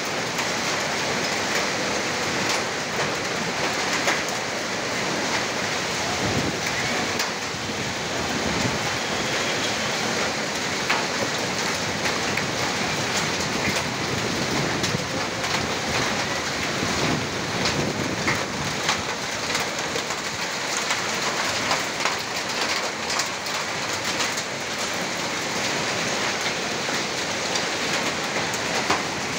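Heavy rain pouring steadily onto a street, a dense even hiss with many sharp ticks of drops striking close by.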